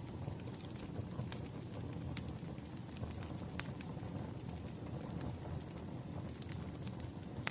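Wood fire burning: a steady low rumble of flames with sharp crackles and pops scattered through, a few more of them close together near the end.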